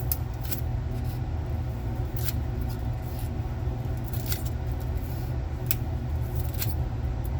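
Light clicks and scrapes of hands and a tool working at a laptop hard drive's cover and sealing sticker, about two a second, irregular, over a steady low hum.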